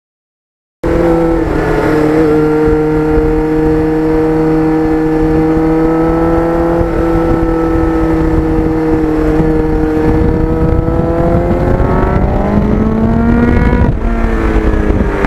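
Kawasaki GPX750R motorcycle's inline-four engine running at a steady cruise under way, with wind rush. It starts abruptly about a second in, climbs in pitch near the end as the bike accelerates, drops briefly, then cuts off suddenly.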